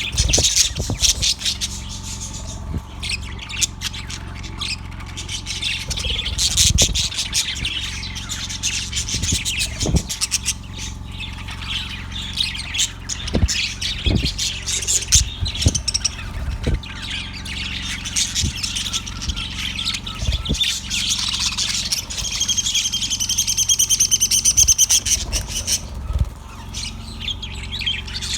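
Yellow budgerigar chirping and chattering without a break, with a louder, fast rippling warble about three-quarters of the way through. Occasional short knocks sound beneath it.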